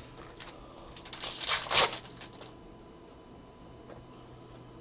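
Baseball trading cards and packs being handled: a few light clicks, then a rustling burst about a second in that lasts about a second and a half.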